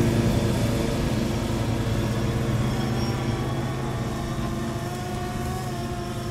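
DJI Phantom 3 Standard quadcopter's motors and propellers buzzing in flight, a steady hum with several pitches that slowly grows quieter as the drone moves away.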